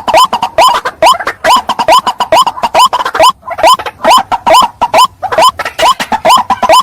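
Male white-breasted waterhen calling, the recorded call used as a hunting lure: a loud, rapid, unbroken series of short upward-hooked notes, about four or five a second.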